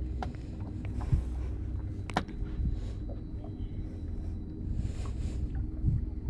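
Water sloshing and lapping at the side of a boat as a fish held in a fish grip is moved in the water to revive it, over a low steady rumble and faint hum. There is a sharp click about two seconds in.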